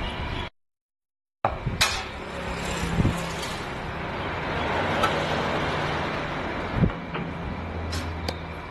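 Workshop noise during drive axle work on a car, with a few sharp metal clicks and knocks from tools and parts. The sound cuts out completely for about a second near the start.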